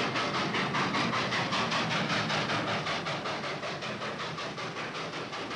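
Steam locomotive chuffing in rapid, even exhaust beats, slowly getting quieter as the train draws to a stop.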